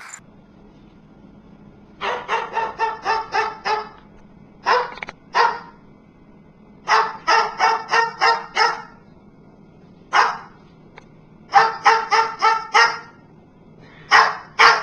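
A small dog barking in quick runs of high yaps, about five or six to a run, with short pauses between the runs.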